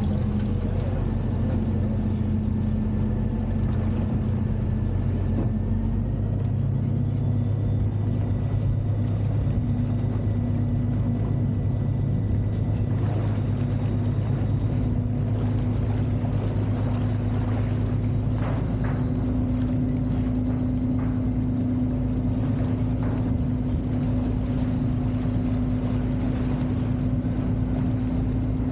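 Motor boat engine running steadily at cruising speed, a low drone over the rush of water along the hull; the engine note rises a little in steps partway through.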